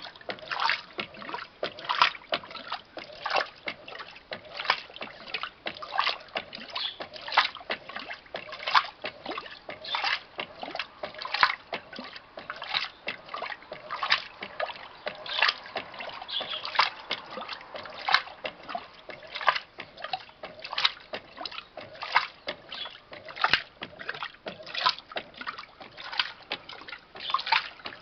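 Electrolux LTC07 top-loading washing machine agitating a load of bedding and towels in high-level water: the water sloshes and splashes in regular surges about every one and a half seconds.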